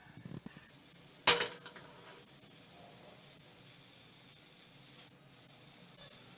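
A kitchen utensil knocks once against metal cookware about a second in, ringing briefly, over a faint steady hiss.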